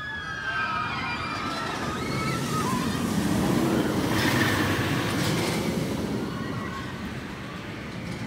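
Hakugei, a Rocky Mountain Construction hybrid roller coaster: a train drops off a hill with its riders screaming, then rumbles past overhead on its steel track. The rumble is loudest a few seconds in and then fades.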